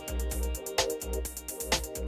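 Background music with a steady beat: a deep bass line, fast ticking high up, and a stronger hit about once a second.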